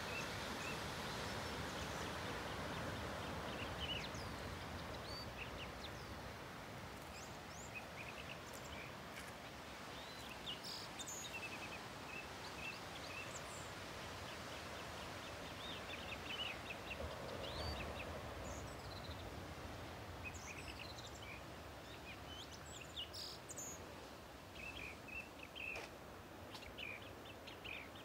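Ocean surf breaking against rocks, a steady wash of noise that is louder at first and swells again about two-thirds through. Small birds chirp repeatedly over it.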